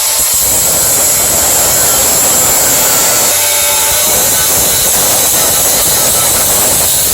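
Power saw cutting wood, a loud, steady run with no break.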